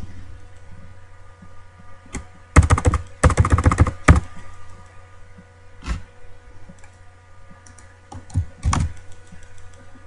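Typing on a computer keyboard: a quick run of keystrokes about three seconds in, then scattered single key taps and clicks, over a steady low hum.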